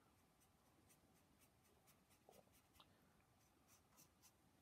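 Faint, near-silent strokes of a paintbrush on watercolour paper: a run of short, light brushings, made to feather out a donkey's shaggy fur.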